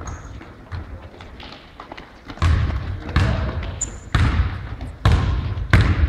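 Basketball being dribbled on an indoor court: a run of hard bounces about one every 0.8 seconds. They turn loud about two and a half seconds in, each with a short echo. A brief high squeak comes near the middle.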